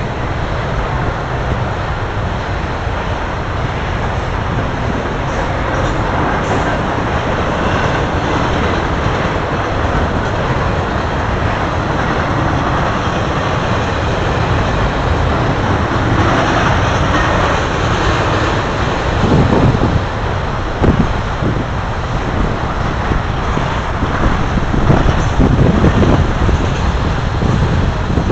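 Norfolk Southern intermodal freight train rolling past, its flatcars loaded with semi-trailers and containers making a steady noise of steel wheels on rail. Gusts of wind on the microphone come in during the second half.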